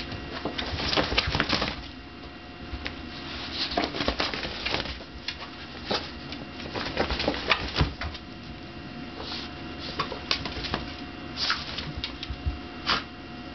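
Two dachshunds playing tug-of-war over a plush toy: irregular scuffling, with paws scrabbling and clicking on a wooden floor and a fabric blanket rustling as one dog shakes its head hard.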